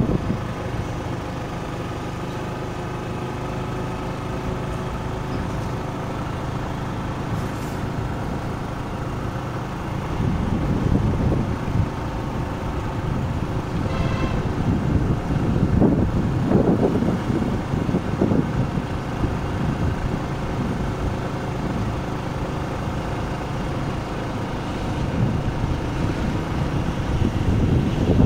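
Engine and road noise of a moving vehicle, heard from on board, with a steady drone and gusts of wind on the microphone in the middle stretch. A short high beep sounds about halfway through.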